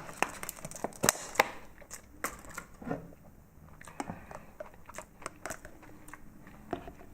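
Packaging being handled: crinkling and rustling with many short, irregular clicks and taps, the loudest about a second in.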